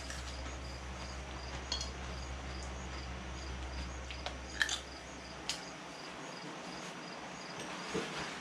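Steady chirping of an insect, high short pulses repeating evenly a few times a second, over a low hum that drops out a little past halfway, with a few faint clicks.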